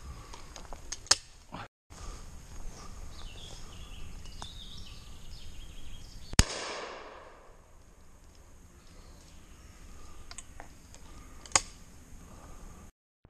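A single shotgun shot about six seconds in, its report dying away through the trees over about a second. Shorter sharp cracks come near the start and near the end.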